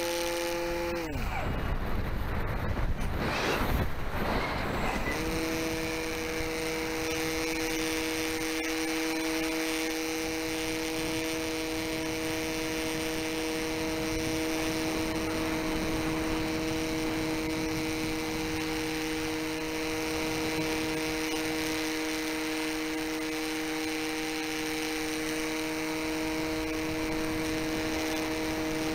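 Propeller motor of an FPV model plane heard from its onboard camera: its steady hum sinks and cuts out about a second in, leaving a few seconds of rushing wind. The motor then winds back up about five seconds in and holds a steady hum at cruising throttle.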